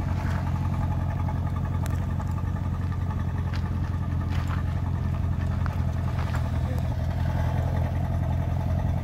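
Aston Martin DBX's twin-turbo V8 idling steadily through its exhaust, with a few light clicks over it.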